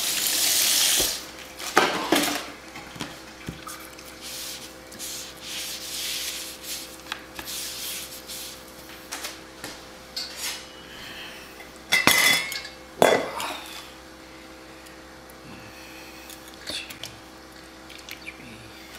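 Kitchen tap running, shut off about a second in, then clinking and clattering of a stainless steel pot and kitchen utensils, with louder knocks about two seconds in and again around twelve to thirteen seconds in.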